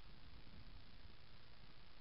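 Low, uneven rumble of wind on the microphone over a steady hiss, with no motor or other distinct sound.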